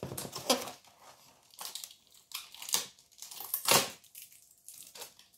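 Cardboard toy box and plastic packaging rustling and scraping in uneven strokes as a hand digs inside to pull out a loose accessory piece. The loudest scrape comes near the end.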